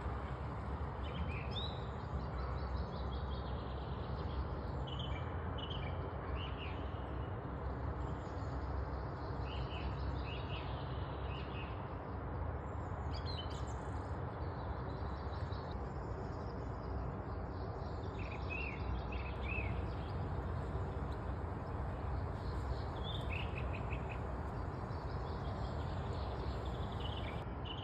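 Small birds chirping in short clusters every few seconds over a steady low background noise.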